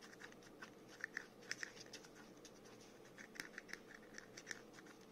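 Fingernail scratching the silver scratch-off coating from a small printed card, in faint, short scraping strokes that come in two flurries.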